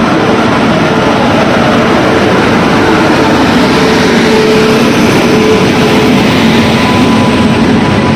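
Jayanti Janata Express passenger train moving, a loud steady rumble with faint held tones in it.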